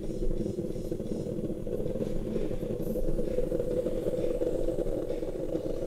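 Aluminium stovetop moka pot heating on an electric stove, giving a steady low bubbling sound as the water boils and pushes coffee up through the grounds.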